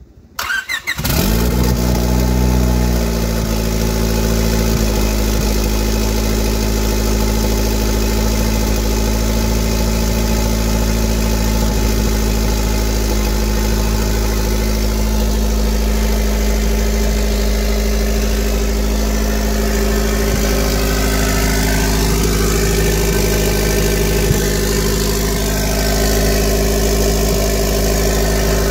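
Turbocharged Honda D16 four-cylinder in a 1999 Civic starting up, on its first start with the turbo fitted. It catches about a second in, runs higher for a couple of seconds, then settles to a steady idle.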